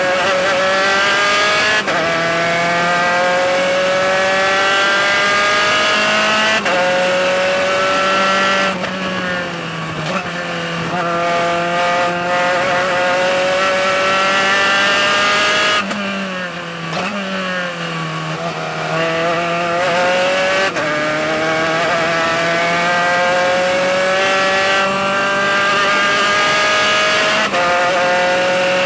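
Spec Racer Ford's four-cylinder engine at full throttle, heard from the open cockpit, its pitch climbing steadily and breaking at each upshift from second through fourth gear. About two-thirds of the way through, pitch and loudness dip briefly as the car slows, then the engine pulls up again.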